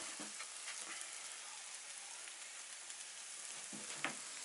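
Slices of dark and white bread frying in oil in a nonstick frying pan, giving a steady, fairly faint sizzle.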